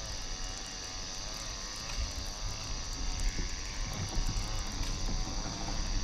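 Fishing reel being wound to retrieve a lure, with handling rustles, over a steady insect chorus and a wavering, warbling tone.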